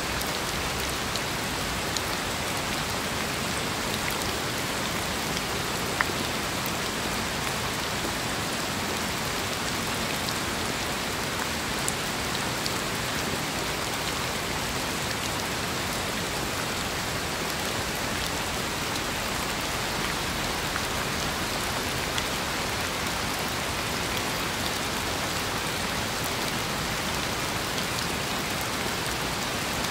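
Steady rain falling, an even hiss with scattered sharper drop ticks; one louder drop tick stands out about six seconds in.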